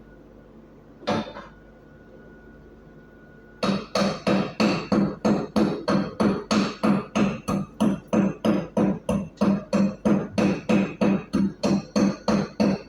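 Chipping hammer striking a steel plate: one knock about a second in, then from about three and a half seconds in a steady run of ringing metal-on-metal blows, about three a second, as slag is chipped off an E6013 weld.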